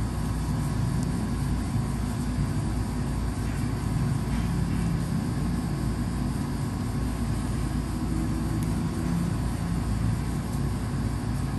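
Steady, low, rumbling background noise with no distinct events.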